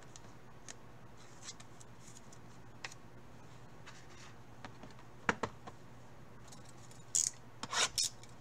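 Gloved hands handling trading cards and card boxes: light scattered clicks and taps, a sharper click about five seconds in, and louder scratchy rustling near the end.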